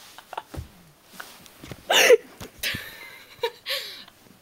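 A young woman's deliberate burp, short and loud, about two seconds in, with softer breathy sounds after it.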